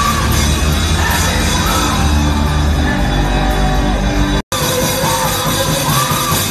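Live gospel worship music: a woman singing into a microphone over a band with electric guitar and keyboard, loud through the PA. The sound cuts out for a split second about four and a half seconds in.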